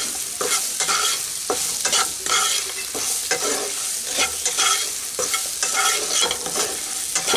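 Diced brinjal sizzling as it fries in oil in a kadai, with a wooden spatula stirring and scraping the pan in steady strokes about twice a second.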